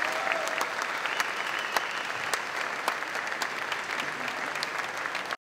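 Audience applauding in a large hall, a steady patter of many claps, which cuts off abruptly near the end.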